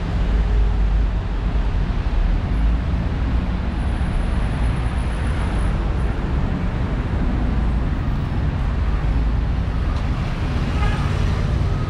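Steady street traffic noise: vehicle engines and tyres going by with a deep, continuous rumble and no single event standing out.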